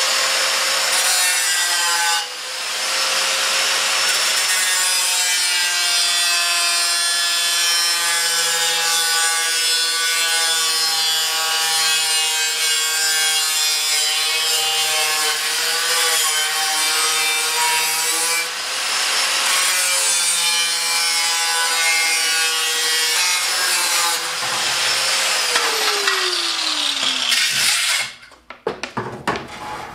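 Angle grinder with a cut-off disc cutting through sheet steel clamped in a bench vise: a steady high whine with the rasp of the cut. Near the end the trigger is released and the grinder winds down, its pitch falling until it stops, followed by a few light knocks.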